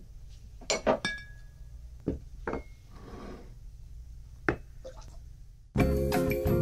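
Glass clinking: about eight sharp clinks, some with a short ringing tone after them, and a brief soft hiss about three seconds in. Music with a steady beat starts near the end.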